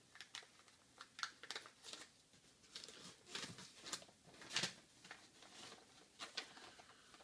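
Energy drink cans and their packing being handled and unwrapped: faint rustling with scattered light clicks and knocks, the loudest about four and a half seconds in.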